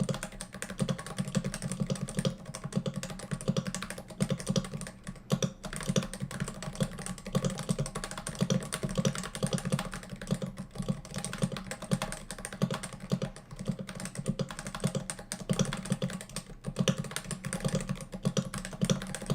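Continuous fast typing on a Cooler Master Novatouch TKL, a Topre-style keyboard with 45 g rubber domes and double-shot ABS keycaps: a steady, dense stream of muted keystrokes.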